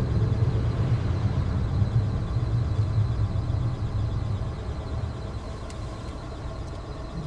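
Car cabin noise while driving: a steady low engine hum and road noise that fade gradually as the car slows for a red light.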